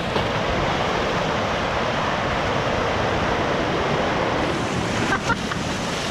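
River rapids rushing steadily, a continuous whitewater wash.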